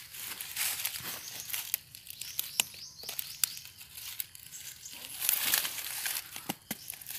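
Dry leaves and twigs rustling and crackling in irregular bursts, as if being handled, loudest about half a second in and again about five seconds in.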